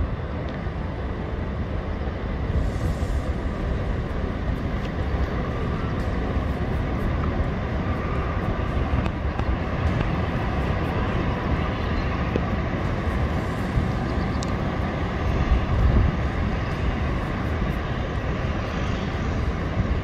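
Steady rush of the Wadi Darbat waterfall in heavy flow, picked up with a phone's zoom-in microphone aimed at the falls.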